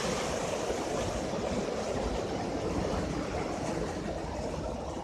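Steady rush of running water, slowly fading.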